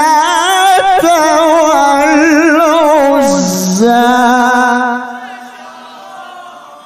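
A man's voice chanting the Qur'an in the melodic tilawah style, drawing out a long ornamented note with a fast vibrato-like waver. A little after three seconds in the pitch drops briefly, then the held note goes on and fades away sharply about five seconds in as the microphone is lowered.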